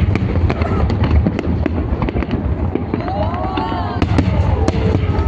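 Fireworks going off in a dense, continuous barrage: many sharp bangs and crackles in close succession over a steady low rumble. A short wavering pitched sound rises and falls a little past the middle.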